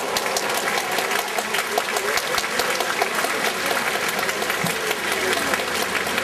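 Spectators applauding, a dense, even clatter of many hands clapping, greeting a point just awarded.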